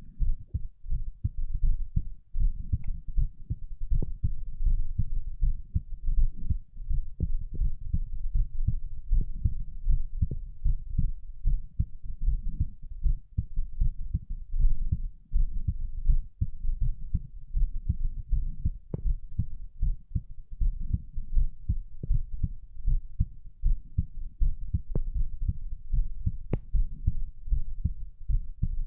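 Human heartbeat heard close to the chest during abdominal exercises: a continuous run of low thumps, not especially fast. A few sharper clicks stand out over it.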